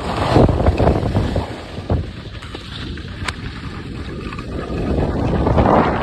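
Wind buffeting the microphone of a skier moving downhill, mixed with the hiss of skis sliding over packed snow. It swells about half a second in and again near the end.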